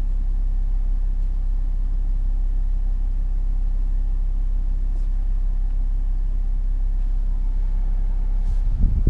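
Jaguar F-Pace's 3.0-litre V6 diesel running steadily, heard as a low, even rumble inside the cabin. A few louder low knocks near the end.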